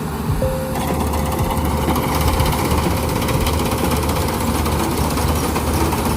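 Rice combine harvester running under power, a steady engine drone with a fast, even mechanical clatter. A thin steady whine sounds over it for the first few seconds.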